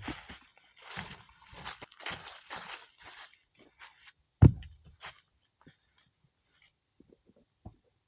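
Crunching and scraping of dirt and rocks in quick strokes, then a single heavy thud about four and a half seconds in, followed by a few small knocks.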